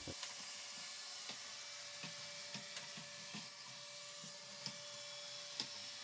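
iRobot Roomba 690 robot vacuum running across a tile floor: a faint, steady motor whir with a thin steady whine, and occasional light clicks.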